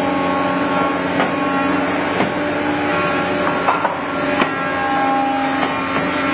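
Thickness planer with a press device running steadily as boards are fed through it: a constant machine hum holding several steady tones, with sharp wooden knocks now and then as the boards are pushed in and taken off.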